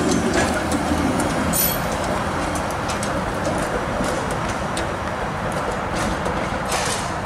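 TTC CLRV streetcar rolling away over the loop's track switches, its running noise slowly fading, with a few sharp clicks.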